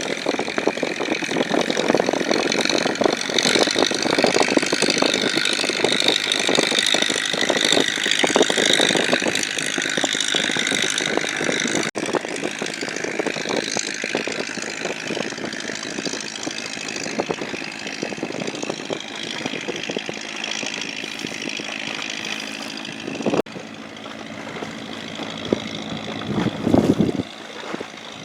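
High-speed boat's engines running steadily: a dense, rapid chugging with a high whine over it. The sound breaks off abruptly twice and is quieter over the last few seconds, with a short louder swell near the end.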